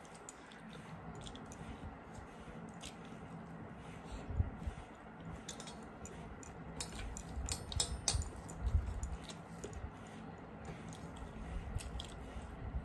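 Close-miked eating by hand: wet chewing and mouth clicks, with fingers squishing and mixing rice and curry on steel plates. A few low thumps about a third of the way in and again past the middle.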